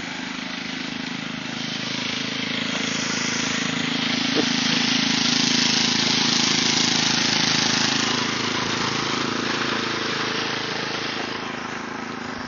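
Snowblower engine running steadily, growing louder from about two seconds in with a rush of hiss over it, then easing off again near the end.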